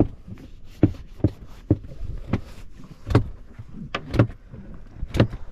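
Irregular sharp knocks and slaps on a fibreglass boat's hull, about two a second, some louder than others.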